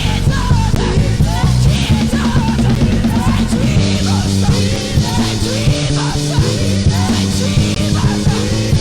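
Live worship band music: a steady drum kit beat under bass and electric guitar, with a wavering melodic line on top that sounds like a singing voice.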